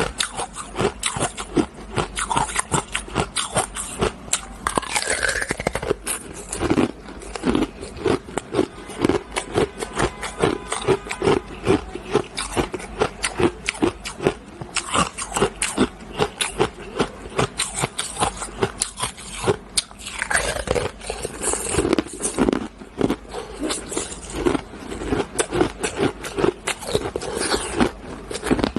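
Hard frozen ice being bitten and chewed, close to a clip-on microphone: a dense, continuous run of sharp cracks and crunches as a purple corn-shaped block of ice is broken up between the teeth.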